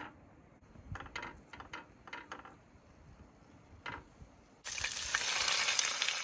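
A few light clicks and knocks, then a little over four seconds in a sudden loud sizzle as a small freshly gutted trout goes into hot oil and starts frying steadily.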